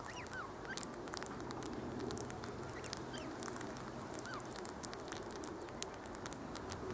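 Wild birds calling: many short high chirps and ticks throughout, with a few brief whistled notes that swoop up and down, over a steady background murmur.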